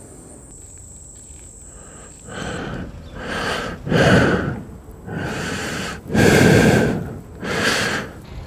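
Loud heavy breathing: about six breaths in and out, each under a second long, starting about two seconds in. Before them, a faint steady high tone over quiet outdoor ambience.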